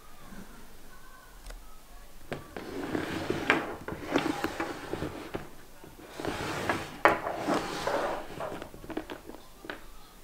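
A saffiano leather crossbody bag being handled on a wooden table, starting about two seconds in: rustling and knocks from the leather, with clicks from its gold metal chain strap.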